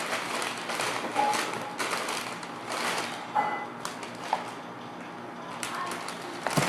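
Plastic shopping bag rustling and crinkling irregularly as toys are pulled out of it, with a few light knocks.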